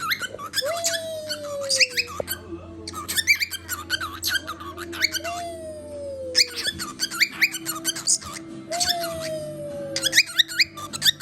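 Pet bird chattering in rapid high chirps and squeaks, broken three times by a long, slowly falling lower note: its mimicry of a chicken sound.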